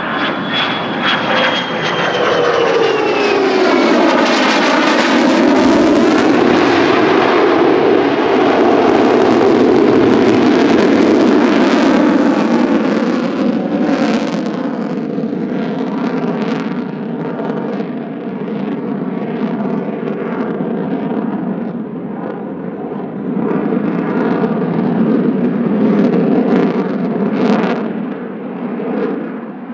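Lockheed Martin F-35A fighter's single jet engine running in afterburner during display passes. A whine falls in pitch over the first few seconds as the jet goes by, then a loud, steady, rippling roar follows, swelling again a little after twenty seconds and fading near the end.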